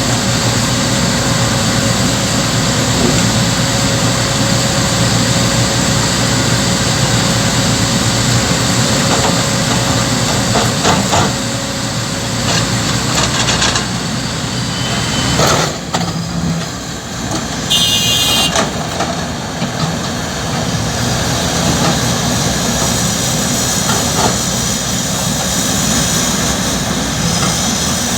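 Diesel engines of excavators running steadily under load as they work.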